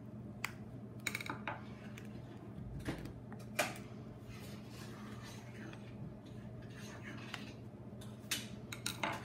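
Scattered sharp clicks, snaps and scrapes of a pry tool working the glass screen loose from a tablet's plastic frame, the loudest about a third of the way in and a few more near the end.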